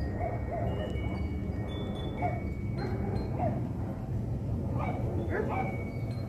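Boeing 777-300ER airliner passing high overhead, heard as a low steady rumble, with wind chimes ringing and a few short high yelps over it.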